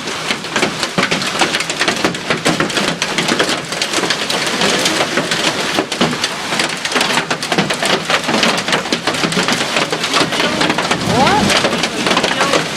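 Hail and heavy rain pelting down in a thunderstorm: a dense, steady clatter of countless small impacts.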